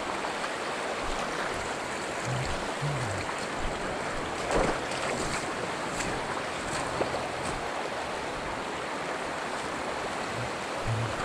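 Steady rush of a fast river running over gravel, with a brief louder knock about four and a half seconds in and a few faint ticks.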